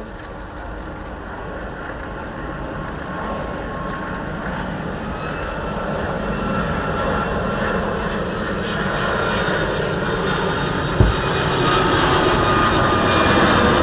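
Twin Rolls-Royce Trent 700 turbofans of an Airbus BelugaXL in flight, the jet noise growing steadily louder as the aircraft approaches, with a whine of engine tones joining the rumble about five seconds in. A brief low thump sounds about eleven seconds in.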